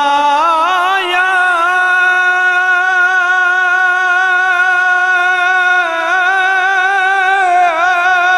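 A man sings a Punjabi devotional song through a microphone with no accompaniment. He rises into one long held note, sustains it for several seconds, then wavers into vocal ornaments near the end.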